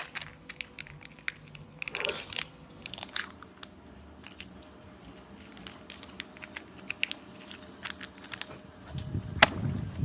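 Kinder Joy egg being opened by hand: its thin plastic shell and foil seal crackle and click in scattered small bursts. A sharper click comes near the end.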